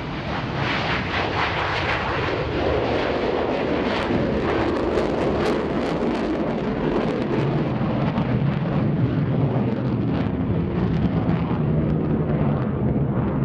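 General Dynamics F-111's two afterburning turbofans at full power: loud, rough, crackling jet noise from the aircraft climbing away.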